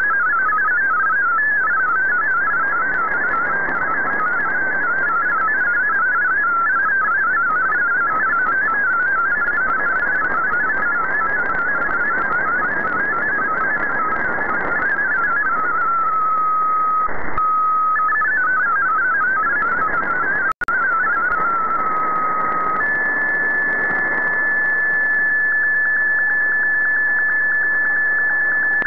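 MFSK32 digital-mode data signal received over shortwave: a fast, warbling stream of stepping tones over radio static. Twice the warble settles briefly into a single steady tone, with a brief dropout in between. Near the end the signal becomes one steady tone as an image transmission begins.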